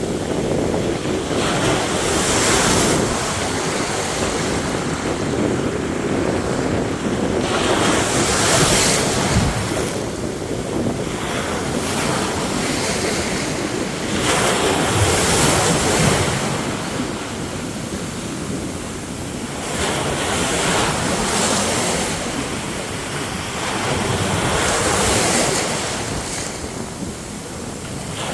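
Sea waves breaking and washing up on a beach, the surf swelling every few seconds, with wind buffeting the microphone.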